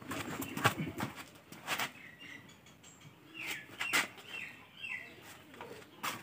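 Scattered knocks and clunks as a heavy lead-acid battery is handled, set down on a concrete floor and lifted into a tractor's battery box. Birds give short falling chirps in between.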